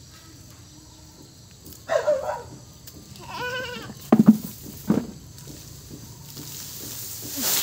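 An animal cries twice, a falling cry about two seconds in and a wavering, bleat-like cry a second later. Then come two sharp knocks of a blade chopping lemongrass stalks, the loudest sounds, and a dry rustle of handled lemongrass near the end.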